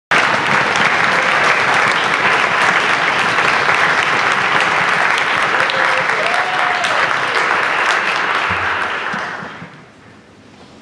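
Audience applauding, the clapping fading away about nine to ten seconds in.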